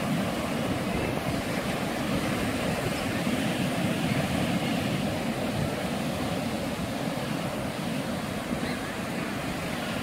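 Ocean surf breaking on a beach: a steady, even wash of waves.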